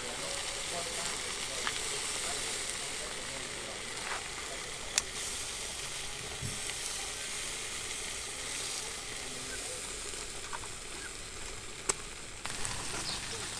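Pig intestines sizzling on a wire grill rack, a steady hiss, with two sharp clicks, one about five seconds in and one near the end.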